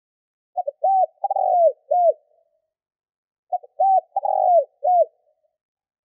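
Spotted dove cooing: two identical song phrases about three seconds apart, each a quick stutter of short notes followed by three arched coos. This is the song of a decoy dove used to call in wild doves.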